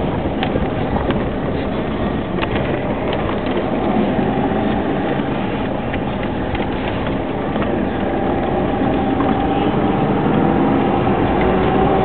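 Car driving on a rough, potholed road, heard from inside the car: steady engine and road noise with scattered knocks and rattles from the bumps. In the second half the engine note rises a little and the noise grows slightly louder.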